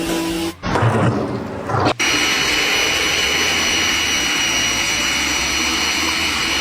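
Music breaks off abruptly, followed by a brief jumble of low knocks, then a motor-driven machine running steadily with a constant high-pitched whine over a hiss.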